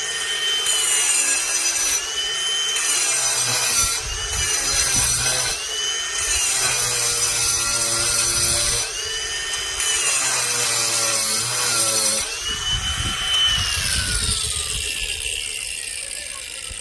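Cordless brushless angle grinder with a diamond wheel grinding concrete. The high motor whine sags and recovers every couple of seconds as the wheel bites into the slab. About thirteen seconds in, the whine falls steadily as the grinder spins down.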